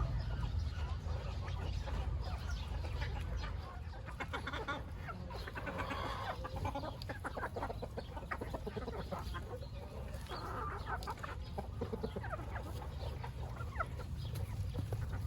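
Flock of chickens clucking as they feed on vegetable scraps, with many short clicks scattered through, over a steady low rumble.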